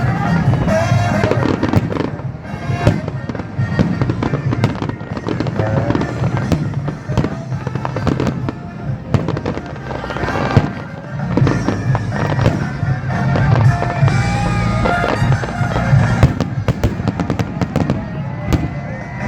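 Fireworks going off in quick, continuous succession, many sharp bangs and crackles, with music playing underneath.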